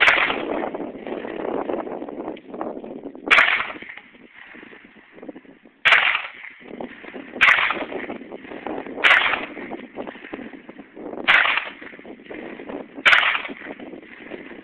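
.45-caliber handgun fired seven times in steady succession, each shot a sharp crack about one and a half to two and a half seconds after the last.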